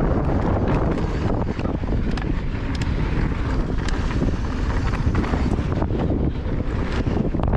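Wind rushing over the microphone during a fast mountain-bike descent, with the tyres rolling over dirt and loose stones and the bike rattling and clicking over the bumps.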